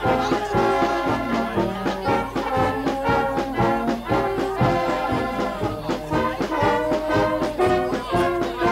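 Background music in a 1930s dance-band style, with brass playing a melody over a steady beat.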